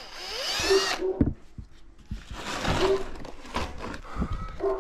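Power drill whirring up with a rising whine, then boring a hole through the plastic of a milk crate in a few short bursts.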